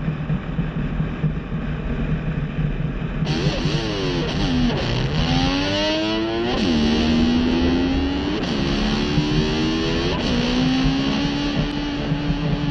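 Distorted electric slide guitar gliding up and down in pitch like a revving motorcycle, then settling onto a held note. It follows a low steady drone in the first three seconds.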